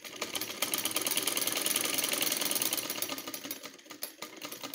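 Domestic straight-stitch sewing machine running a seam, a rapid, even clatter of needle strokes. It picks up speed in the first half second, then slows and stops near the end.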